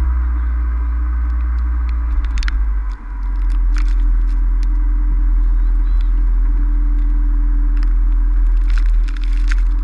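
Wind buffeting the microphone in a snowstorm, a heavy steady rumble, with scattered short, faint, high-pitched sounds over it.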